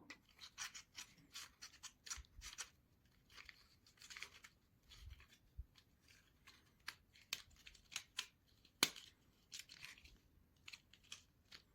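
Faint, irregular clicks and light rustling of thin basswood model parts being handled and fitted together, with one sharper click about nine seconds in.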